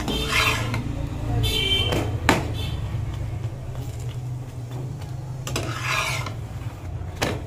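Metal spatula pressing and scraping a paratha across a steel frying pan: several short rasping scrapes, with a sharp metal clink about two seconds in and another near the end, over a steady low hum.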